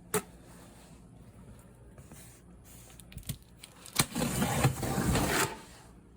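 Handling of a cardboard fireworks case: a sharp click at the start, a few faint ticks, then a knock followed by about a second and a half of rustling and scraping.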